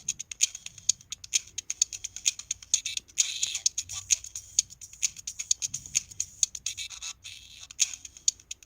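LG-SH130 mobile phone playing a ringtone through its faulty speaker: the sound is a dense, rapid crackling and clicking, several clicks a second, and little of the melody comes through.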